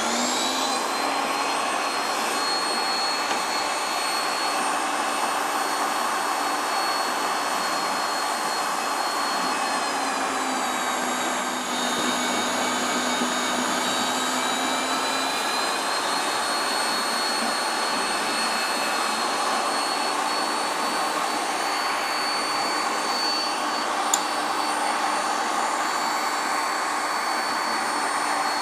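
Bandsaw running steadily as it cuts through a cold-rolled mild steel bar, a constant mechanical whine whose pitch sags slightly midway through the cut.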